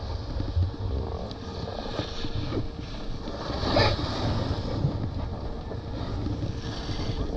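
Wind buffeting the microphone while riding a snowboard downhill, with the board's edge scraping over the snow. There is a louder scrape just before four seconds in.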